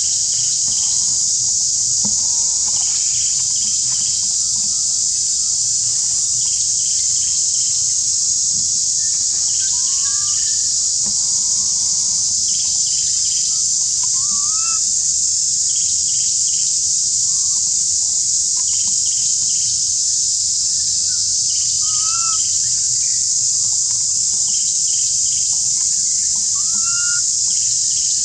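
Steady, loud, high-pitched drone of an insect chorus. A few short rising chirps come through it at intervals.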